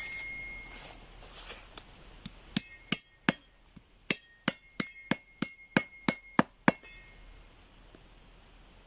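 About a dozen sharp strikes in a steady rhythm, roughly three a second, each with a short metallic ring, like hammering or chopping with a metal tool.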